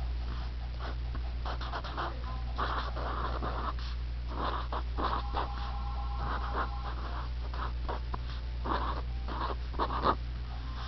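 Pen writing on paper: a run of short scratchy strokes with a few brief squeaks, over a steady low electrical hum.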